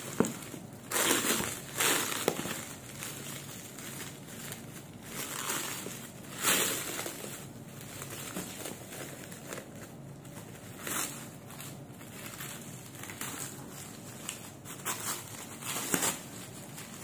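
Clear plastic wrapping crinkling and rustling as hands tear and pull it off a packed item, in irregular bursts with louder crackles about one, two and six seconds in.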